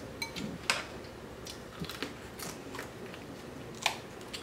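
Crab leg shells cracking and snapping as they are broken open and bitten into, with two sharp loud cracks, one about a second in and one near the end, among smaller clicks.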